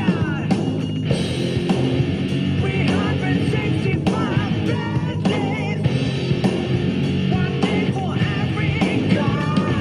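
Electric guitar, a Wylde Audio played through a Yamaha THR amp, playing a blues-rock lead with bent notes and vibrato over a full rock backing with drums.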